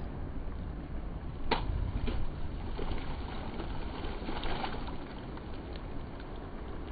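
Wind rumbling on the microphone over the ocean below a sea cliff, with a sharp click about a second and a half in and a few faint clicks a few seconds later.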